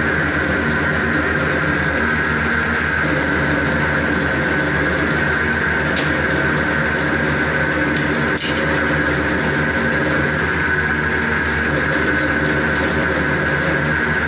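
Semi-automatic noodle machine running steadily, its rollers and cutters turning as they feed a dough sheet through and cut it into noodles. The machine gives a steady hum with a high whine, and two sharp clicks come about six and eight seconds in.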